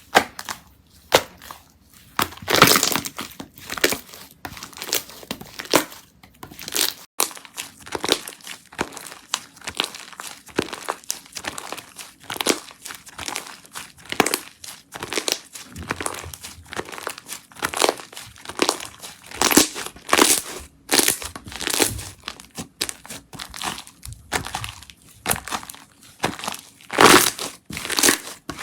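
Slime being squished and worked by hand close to the microphone, giving a dense run of quick, irregular crackles and pops, with louder clusters about two and a half seconds in and near the end.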